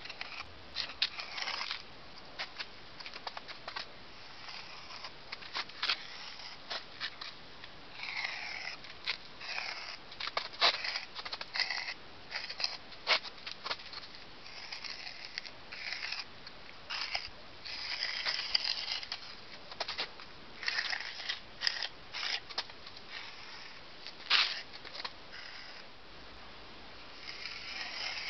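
Tip of a small steel trowel scratching grooves into fresh cement mortar, in short, irregular scraping strokes with a few sharp clicks.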